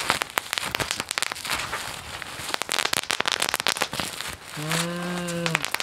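Bubble wrap being squeezed and twisted by hand, a dense run of irregular sharp pops. Near the end a man's voice holds a single note for about a second.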